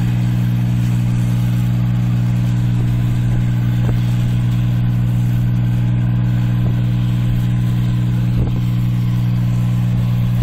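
New Holland 8060 combine harvester's diesel engine running at a steady, even pitch while the machine harvests rice.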